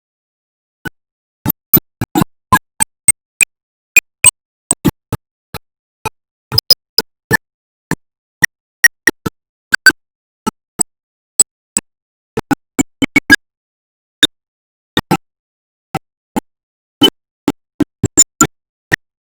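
Sparse, irregular sharp percussive hits, one to three a second, with dead silence between them.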